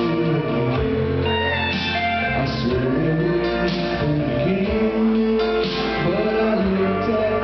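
A country band playing live, with guitar.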